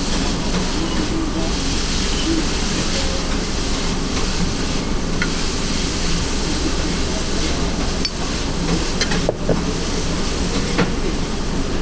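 Steady hiss and rumble of a small yakisoba restaurant's kitchen and ventilation, with faint voices under it. A couple of sharp clinks come near the end, from the beer bottle and glass being handled on the counter.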